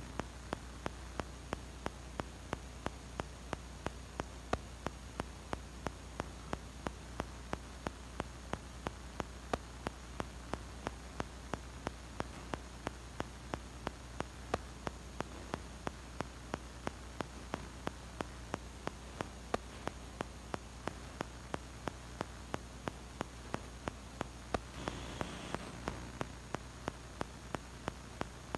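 Steady electrical hum and static hiss, broken by sharp clicks about twice a second, with a slightly louder hiss for about a second near the end.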